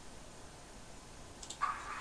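Two small clicks about a second and a half in, then the model diesel locomotive's sound decoder, an ESU LokSound v4.0 in a TT-scale Roco Ludmilla, starts playing a steady engine sound through its tiny loudspeaker, thin and without deep bass.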